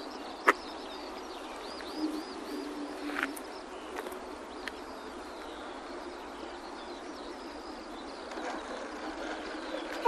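Steady outdoor background hiss with scattered bird chirps and a sharp click about half a second in. Near the end a whine falls quickly in pitch as the electric model plane's motor spools down at touchdown.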